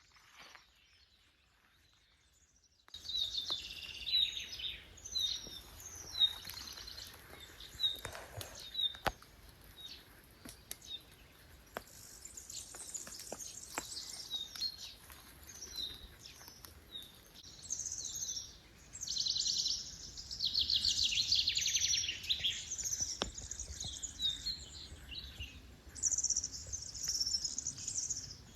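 Near silence for about three seconds, then several songbirds chirping and singing in short, repeated phrases, over a faint steady low rumble.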